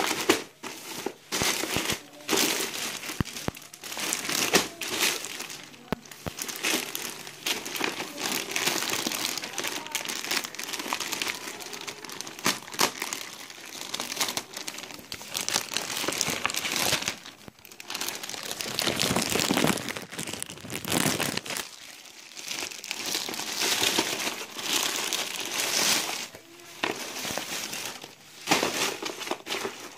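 Clear plastic parcel wrapping crinkling and rustling as hands pull it open, in irregular bursts with a few short pauses.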